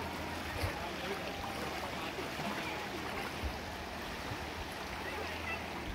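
Swollen river in flood, its fast brown water rushing over and around a low stone causeway in a steady rush.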